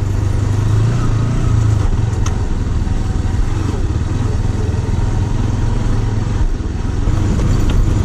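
Bajaj Pulsar motorcycle's single-cylinder engine running at a steady pace while riding over a rough stony dirt track, with tyre and road noise, easing briefly late on.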